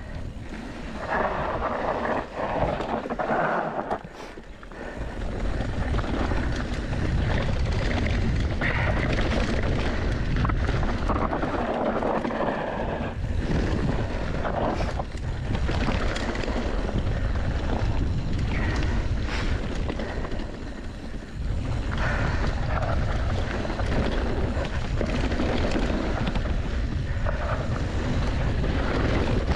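Mountain bike riding down a dirt trail: wind buffeting the microphone, tyres rolling over dirt and rock, and frequent knocks and rattles from the bike. The wind rumble gets much stronger about five seconds in.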